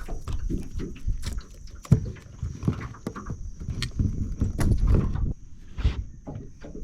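Irregular knocks, clunks and scrapes of gear and crab pots being handled in a small boat, with one sharp thud about two seconds in, over a steady thin high whine.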